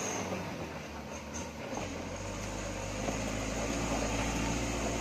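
Engine of a loaded cargo truck running as it pulls away on a dirt road, a low steady hum that grows stronger about two seconds in.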